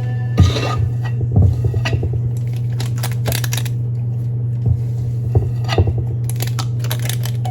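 Kitchen handling sounds: scattered light clinks and knocks of dishes and utensils over a steady low hum.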